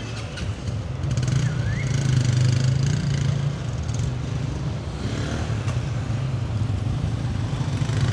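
A motor vehicle's engine running steadily in street traffic, growing louder about a second in and then holding.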